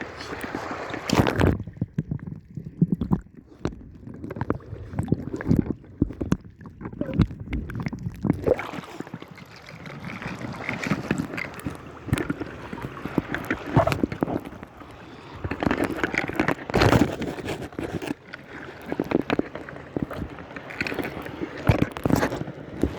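Sea water sloshing and gurgling, with irregular splashes coming and going.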